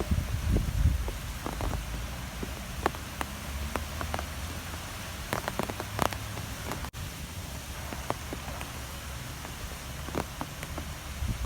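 Strong wind blowing with a constant low rumble, heaviest in the first second, and scattered sharp ticks and taps throughout.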